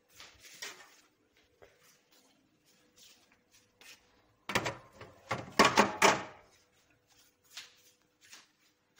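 Light knocks and clicks from a glass-fronted crockery cabinet being handled, with a louder run of four or five knocks and rattles about halfway through.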